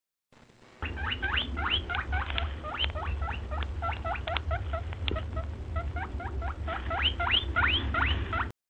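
Animal squeaks: a rapid series of short, high chirps, each sweeping sharply upward in pitch, about four a second, louder and longer near the end, over a steady low rumble. The sound cuts off suddenly just before the end.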